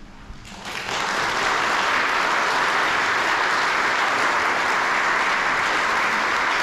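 Audience applauding: the clapping starts about half a second in, swells within a second and then holds steady and loud.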